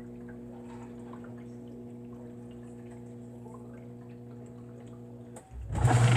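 Dishwasher filling: a steady low hum with faint drips. About five and a half seconds in there is a click, and the wash cycle starts, with water spraying and swishing loudly inside.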